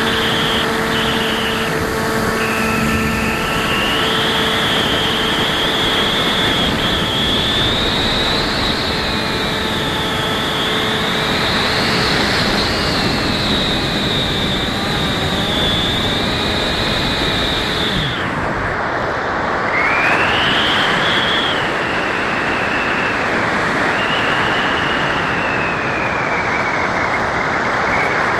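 Electric motor and pusher propeller of a Bixler foam RC plane, heard from a camera on board in flight, with wind rushing past. The motor whine wavers up and down with the throttle, drops away for a moment about two thirds of the way through, then comes back rising.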